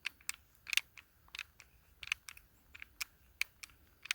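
Irregular light clicks and ticks of a Glock 19 and a small threaded compensator being handled, metal and polymer parts tapping and clicking, about a dozen sharp clicks spread through the few seconds.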